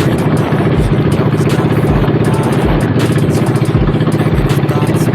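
An engine running steadily at a constant speed, with a fast, even pulsing.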